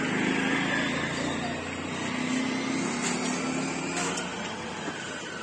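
Steady road-traffic noise with a low engine hum, mixed with indistinct voices.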